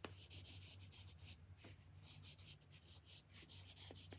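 Faint pencil scratching on paper as names are written down, with a few light ticks of the pencil.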